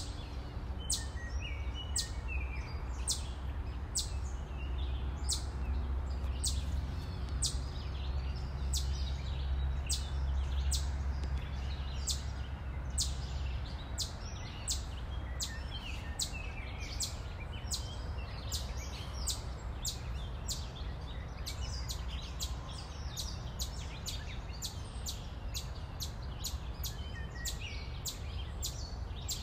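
Outdoor ambience: many short, high chirps, about two a second, over a steady low rumble.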